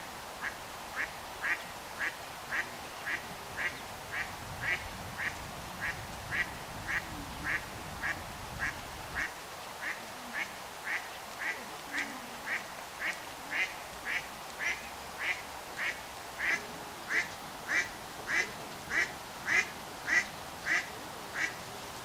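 Eastern spot-billed duck quacking in a long, steady series of short calls, about two a second, growing louder near the end.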